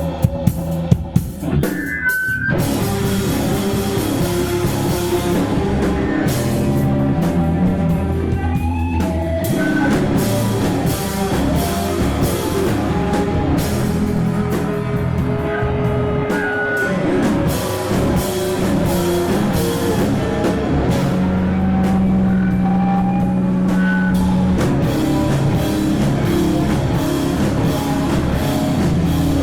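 Rock band playing live: guitar and drum kit in a continuous, loud passage, with a few sharp hits in the first couple of seconds.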